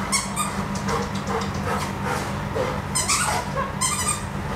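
Golden retriever whining in several short, high-pitched whines, over a steady low hum.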